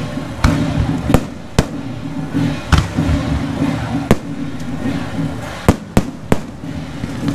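Aerial fireworks shells bursting overhead: about eight sharp bangs at irregular intervals, over a low background rumble.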